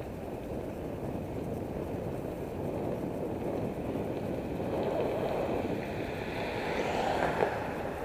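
Steady wind noise buffeting the microphone of a camera on a moving bicycle, with road noise underneath. Near the end it swells and grows brighter, as an oncoming car passes, and there is a brief knock just before the end.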